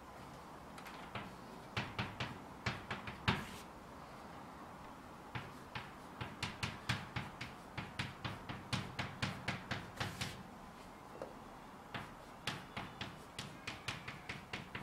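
Chalk on a blackboard as handwritten Japanese characters go up: runs of quick, sharp taps, one per stroke, with short pauses between characters.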